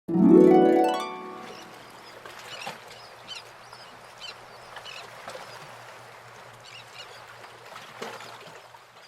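A quick harp glissando of plucked notes that rings out within about a second, followed by a faint hiss with a low hum and a few short scattered chirps.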